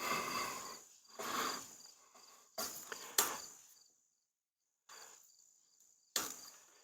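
Heavy, laboured breathing, a breath about every second and a half, over a faint steady high-pitched insect chirring.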